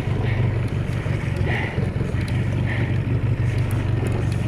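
Skiff's outboard motor running at a steady low idle.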